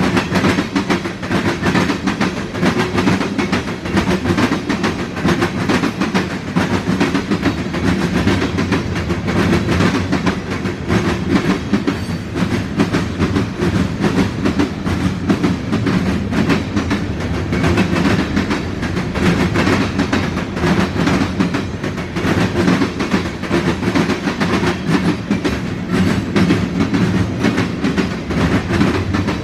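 Freight train cars rolling past: a steady rumble of wheels on rail with a dense, continuous run of clicks and clatter from the wheels over the track.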